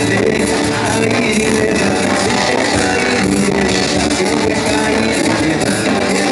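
Live band playing through a PA: a male singer over guitars and drums, loud and continuous.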